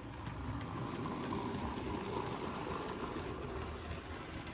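Hornby OO gauge Toby the Tram Engine model locomotive pulling two coaches along the track: its electric motor running and its wheels rolling on the rails in a steady mechanical rumble, a little quieter near the end as it moves away.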